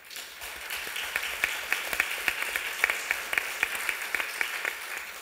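Audience applauding: many people clapping together, starting at once and tapering off near the end.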